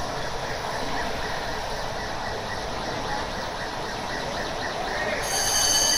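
A steady noisy din in a large hall; about five seconds in, an earthquake-drill alarm comes on suddenly with a steady shrill tone.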